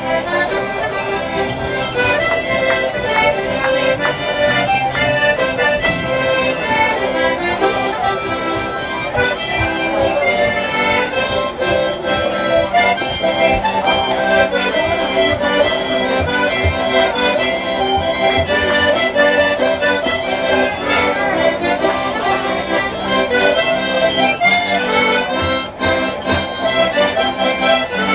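A Newfoundland jig played live as an instrumental, a quick tune over a steady dance rhythm.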